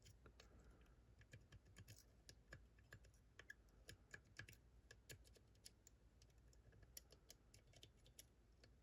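Faint, irregular small clicks of a lock pick probing and tapping the pins of a seven-pin Fontaine pump lock held under tension.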